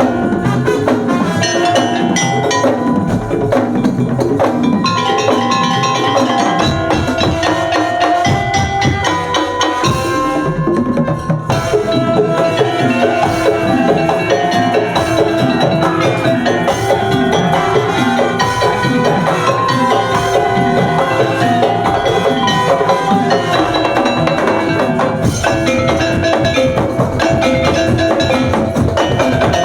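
Madurese tongtong (daul) percussion ensemble playing a fast, steady rhythm. Wooden knocks and bell-like pitched tones ring over drums, and the sound thins briefly about ten seconds in.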